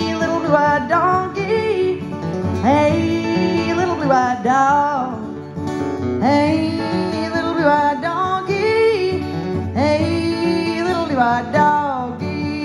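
A woman singing a country song live, accompanying herself on a strummed acoustic guitar.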